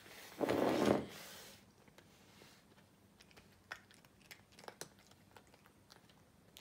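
A brief loud rustling noise about half a second in, then scattered small clicks and crunches as cats nose at a plastic jar of treats and eat.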